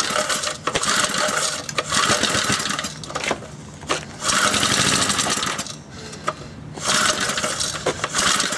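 Briggs & Stratton 60102 2 hp single-cylinder engine being pull-started on half choke, about four pulls: each gives a second or so of fast cranking and sputtering firing that dies away without the engine keeping running. It is hard to start, which the owner traces to an intake air leak around the carburettor gasket.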